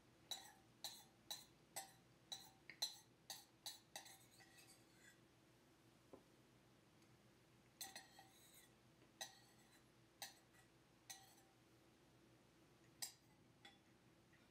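Sparrows chirping: a quick run of short, sharp chirps, about two a second, for the first few seconds, then a few scattered chirps.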